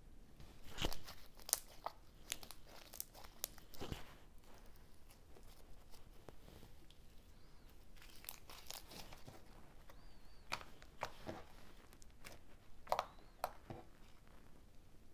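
Clear, bubbly slime being stretched, folded and squeezed by hand: irregular crackling pops and squelches as air bubbles in the slime burst, loudest about a second in, around four seconds, and again near the end.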